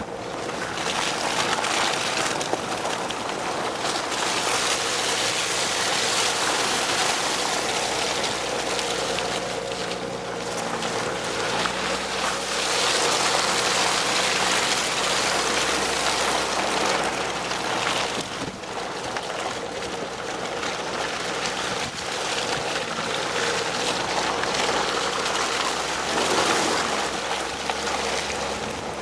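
Car driving on a wet, muddy dirt road: tyres splashing and sloshing through mud and water over a steady low engine hum, the splashing swelling and easing in waves.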